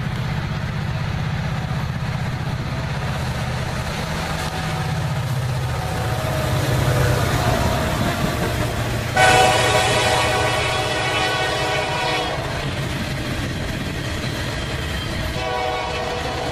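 A CSX diesel freight train passing close by: the locomotives' engines rumble past, then boxcars roll by on the rails. About nine seconds in, a train horn sounds loudly for about three seconds, and sounds again more faintly near the end.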